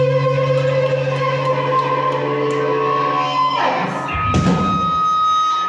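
Rock band live, electric guitars holding a sustained final chord. About four seconds in a noisy crash breaks through, leaving one high steady tone ringing on.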